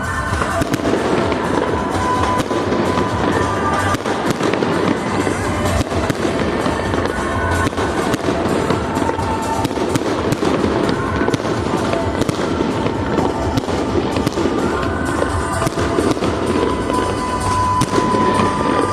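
Fireworks show: a steady run of dense bangs and crackling, with music playing along.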